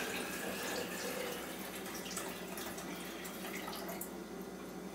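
Water pouring in a steady stream from a plastic pitcher into the water reservoir of a Mr. Coffee tea maker; the stream thins a little near the end.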